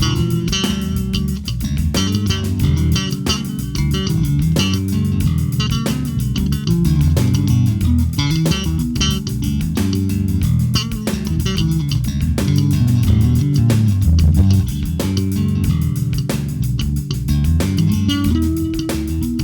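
Electric bass guitar played solo: a continuous line of plucked notes, each with a sharp, clicky attack.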